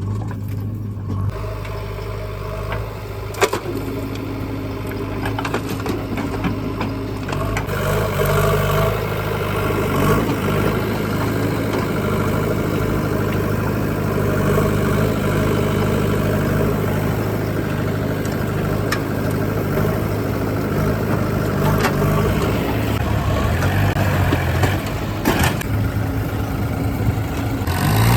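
Heavy machine's engine running steadily, its note rising and growing louder from about eight seconds in as it works, with a few sharp knocks.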